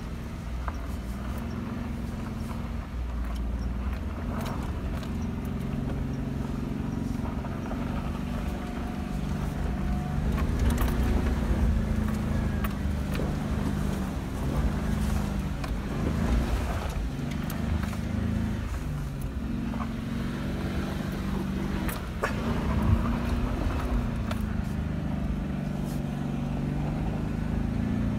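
Jeep engine heard from inside the cab, its revs rising and falling as it pulls up a steep, rough dirt trail. Knocks and rattles come from the body jolting over bumps, one sharper knock near the end.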